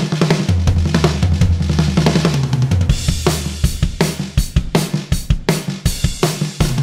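Instrumental background music led by a drum kit over a steady bass line; about halfway through, the beat turns into a run of strong, evenly spaced drum hits.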